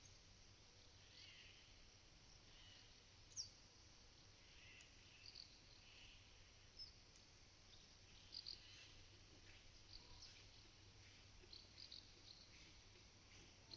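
Faint, short chirps and calls of small birds, scattered every second or two, over quiet, steady low background noise.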